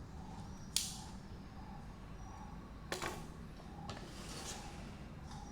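Two sharp clicks, about a second in and a double one near three seconds, followed by a softer brief rustle: small hard objects being handled and set down. A low steady hum runs underneath.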